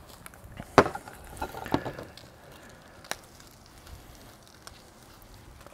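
A plate set down on a table with a sharp clack about a second in, then a few softer knocks and rustles as a burger is picked up off it.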